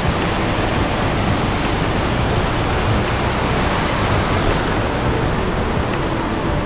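Steady rushing noise.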